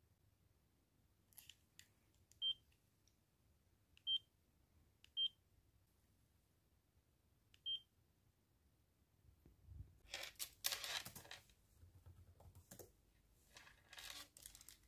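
Casio Exilim compact digital camera beeping at button presses while paging through photos: four short high beeps spread over several seconds, with a couple of faint button clicks just before the first. In the second half, a few seconds of rustling handling noise.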